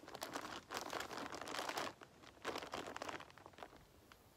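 Faint crinkling, rustling noise in two stretches, a long one and then a shorter one, followed by a few small ticks near the end.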